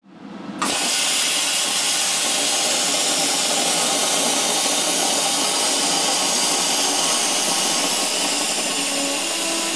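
Plasma cutter torch cutting through steel plate: a loud, steady hiss of the arc and air jet, starting within the first second.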